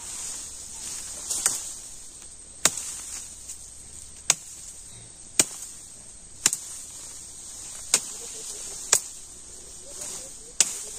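Machete chopping at a harvested cassava plant: eight sharp strikes about a second or so apart. A steady high insect drone runs underneath.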